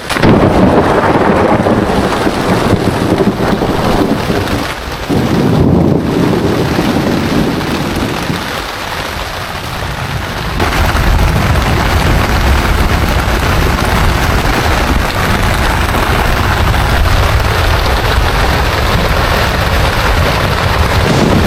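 Heavy rainstorm with strong wind, a loud, dense rushing noise with a low rumble of gusts on the microphone; the sound shifts abruptly about ten seconds in.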